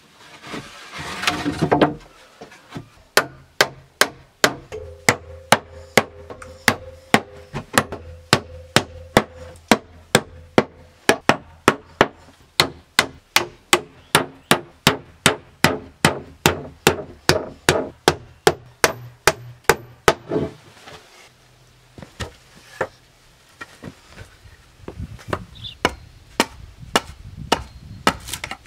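Rapid, regular hammer blows on wood, about three a second, after a brief rasping scrape at the start. The blows stop for a few seconds late on, then start again.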